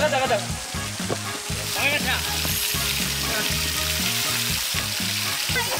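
Steady hiss of spraying and splashing pool water over background music with a steady beat.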